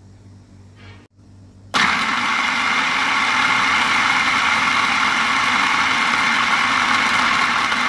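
Electric food processor switched on about two seconds in, its motor and blade running steadily and loud as it grinds drained milk curds into smooth cream cheese.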